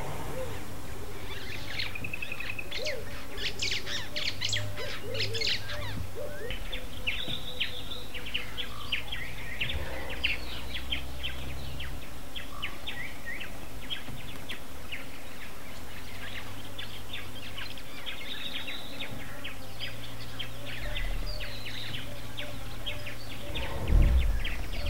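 A chorus of wild birds: many quick chirps and trills, with a few lower calls in the first few seconds, over a low hum that comes and goes. There is a loud low thump near the end.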